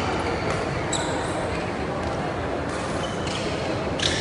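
Badminton play on an indoor court: short sharp shoe squeaks and shuttlecock strokes, one about a second in and several close together near the end, over a steady murmur of voices in the hall.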